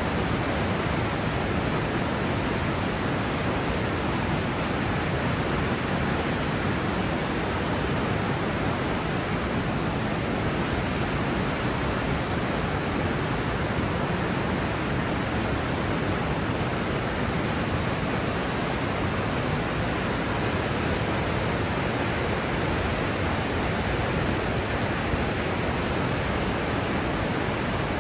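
Whitewater rapids of the Niagara River rushing in a steady, unbroken noise.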